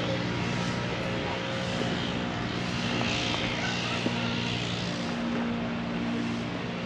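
A steady engine drone: a constant low hum under an even hiss, with no change in pitch.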